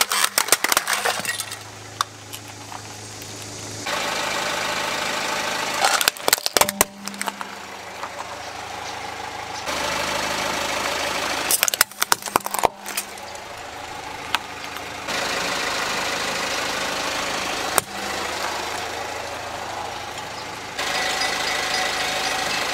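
Plastic toys cracking and snapping under a car tyre, in several separate bursts of crunching, with a car engine idling steadily between them.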